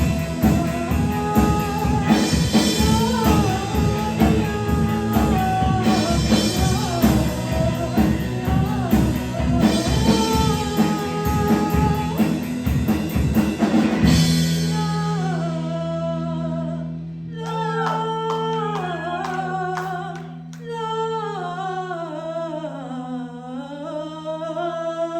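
Live rock band playing with singing: drums, guitar and bass under the vocal, then about fourteen seconds in the drums stop and the singing carries on, gliding up and down, over a held chord.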